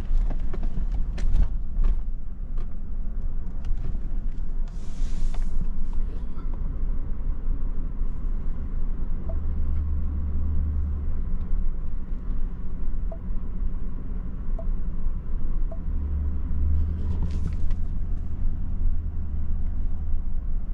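Car driving along a road, heard inside the cabin: a steady low rumble of engine and tyres, with a few knocks in the first couple of seconds and a brief hiss twice, about five seconds in and near the end.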